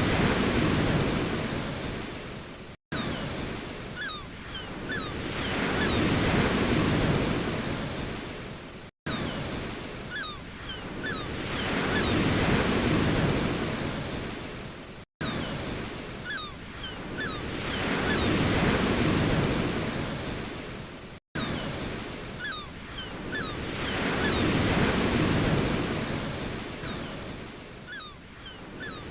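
Ocean waves washing ashore, each surge swelling and fading about every six seconds. Four brief dropouts to silence, about six seconds apart, mark where a short recording loops.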